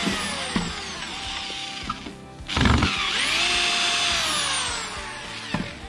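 A corded electric drill run twice against a plywood board. Each run lasts a couple of seconds, its motor whine sliding down in pitch as it works.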